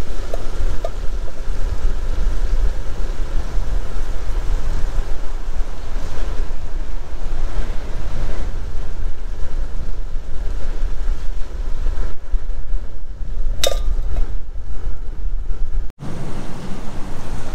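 Wind buffeting the microphone: a steady, heavy low rumble with rushing noise throughout. A single short ringing clink sounds about three-quarters of the way through.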